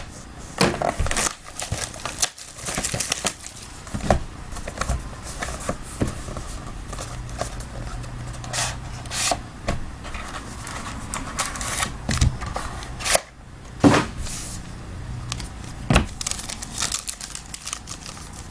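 Plastic wrap and cardboard packaging crinkling and tearing, with scattered clicks and scrapes, as a sealed box of trading cards is opened by hand.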